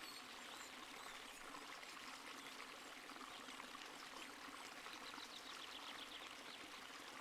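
Faint, steady rushing noise like flowing water, with faint high chirps now and then.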